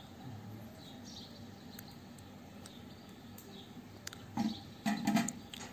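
Faint small-bird chirps in the background, with a few brief louder knocks and clatters near the end.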